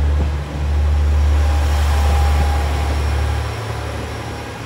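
A red JR two-car diesel railcar train running over a concrete viaduct, a steady low engine and wheel rumble that fades over the last second or so as it pulls away.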